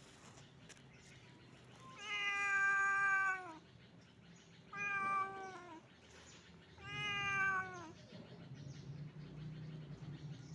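A cat meowing three times, the first call longest at about a second and a half, each call falling in pitch at its end.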